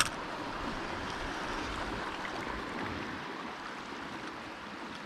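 Sea water washing and lapping against shoreline rocks, a steady rushing noise, with one sharp click right at the start.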